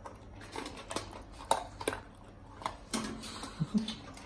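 Tibetan Mastiff eating dry kibble from a stainless steel bowl: irregular sharp crunches and clinks of kibble and muzzle against the metal bowl.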